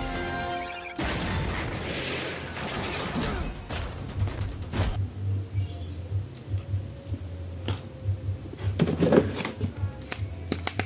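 Rustling of plastic toy packaging for a few seconds, then scattered clicks and a short crackle as it is handled, over a steady low hum.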